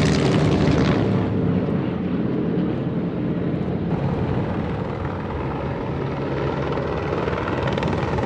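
Low-flying propeller warplanes, a deep steady engine drone, a little louder in the first second or so.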